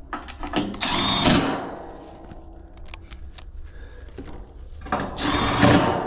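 Cordless power driver spinning sheet-metal screws on the top panel of a heat pump's outdoor unit cabinet: two short whirring runs about four seconds apart, with small clicks of handling between them.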